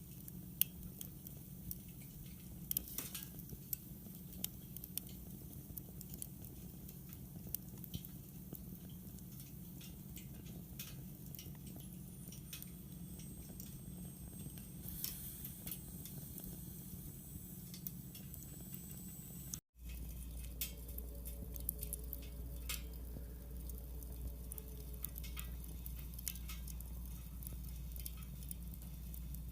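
Wood fire burning in a fire pit stand, crackling with scattered sharp pops. The sound drops out for an instant about two-thirds through, and a steady low hum runs under the crackle after that.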